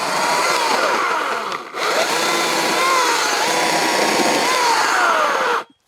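Small electric chainsaw cutting into a dead standing tree: a run of about a second and a half, a brief break, then a longer run whose pitch wavers and sags under load, stopping suddenly near the end.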